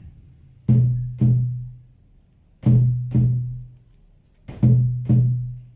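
Shamanic frame drum beaten in pairs of strokes, like a heartbeat: three double beats about two seconds apart, each stroke booming low and fading.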